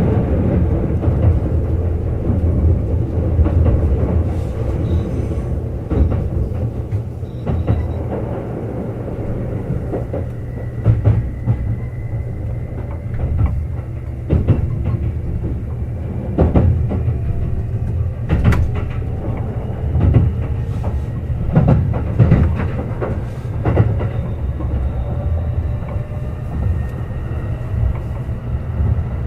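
Kintetsu Urban Liner Plus limited express train running at speed, heard aboard: a steady low rumble with sharp clicks and knocks of the wheels over the rail joints every second or two, and a faint whine that slowly rises in pitch.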